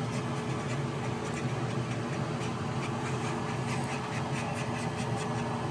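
Steady electrical hum, with faint irregular scraping and ticking as a piece of plastic card stirs a small batch of epoxy and hardener.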